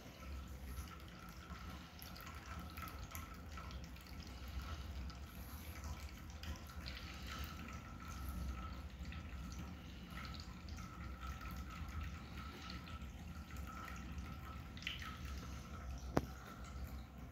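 Cats eating wet food from bowls: soft, wet chewing and smacking with many small irregular clicks, and one sharper click near the end, over a low steady hum.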